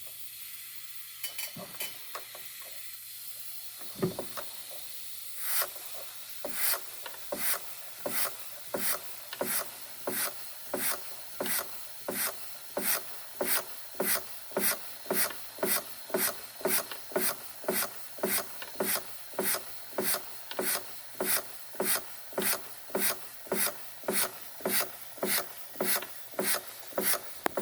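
Bing 130/383 toy steam engine with its frozen steam supply valve freed, running slowly on steam: a steady hiss with a few clicks at first, then even puffing strokes at about two a second.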